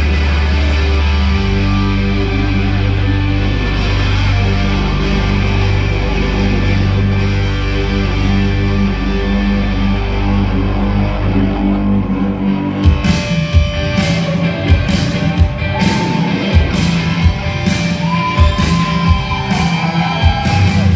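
Live rock-style electric guitar music heard from the audience. Held low notes carry the first part; about 13 seconds in, it changes to a rhythm of sharp, regular beats.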